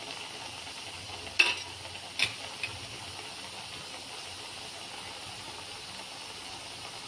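Milk curds cooking in a steel kadhai, bubbling and sizzling steadily. A few sharp clicks of the steel ladle against the pan come between about one and a half and two and a half seconds in.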